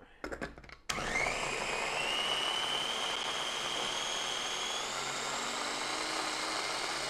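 Electric mini food chopper pureeing onions. A few clicks as the motor head is set on the bowl, then about a second in the motor starts and runs steadily, its whine rising in pitch as it spins up.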